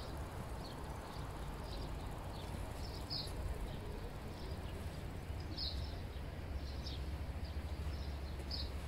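Outdoor ambience: a steady low rumble of wind on the microphone, with short high bird chirps every second or so.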